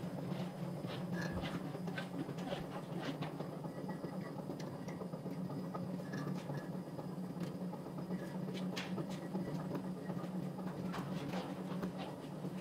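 Steady low machine hum with scattered light clicks and taps, as hands mash and gather crumbled chhena in a steel tray.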